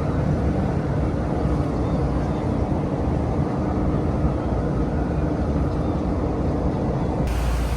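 Steady vehicle noise: an even rumbling hiss with a faint steady hum, shifting slightly in character near the end.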